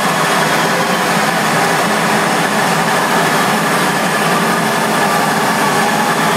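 Electronic dance music from a live DJ set, played loud over a club sound system. It comes through as a dense, steady wash with little deep bass.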